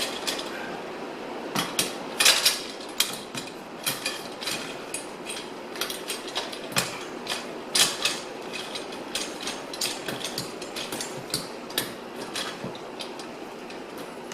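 Irregular metallic clinks and knocks of a chainsaw bar being worked into the clamps of a Granberg Alaskan chainsaw mill, its loosely assembled parts rattling against each other.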